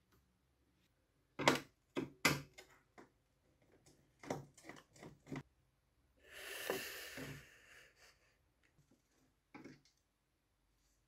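Handling noise around a plastic toy sewing machine: a series of sharp clicks and knocks, a brief scraping rustle about six seconds in, and one more click near the end.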